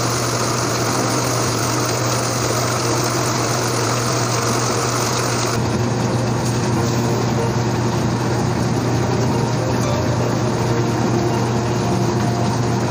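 Heavy rain falling as a loud, steady hiss with a low rumble under it. The hiss thins out abruptly a little over halfway through.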